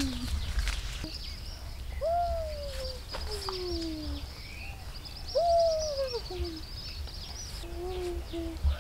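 Several drawn-out animal calls, each rising quickly and then sliding down in pitch, the last few shorter and steadier. A high-pitched chirring runs behind them.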